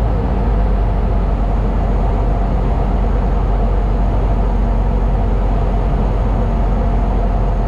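Cessna light aircraft's engine and propeller running with a steady, loud drone, heard from inside the cabin.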